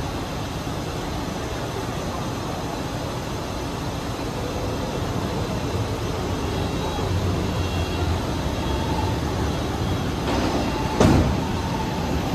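Helsinki Metro M300 train standing with its doors shut, then starting off and rolling past the platform: a steady background rumble, with a low hum and running noise building from about halfway through. A sharp thump comes about eleven seconds in.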